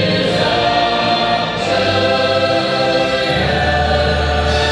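Castle projection show soundtrack played over park loudspeakers: choir singing sustained, swelling chords over music with a steady low bass.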